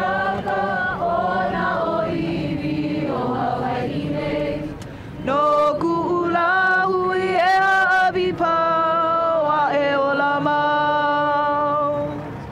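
A crowd of people singing a chant together in long held notes. From about five seconds in, louder and clearer voices close by carry the line.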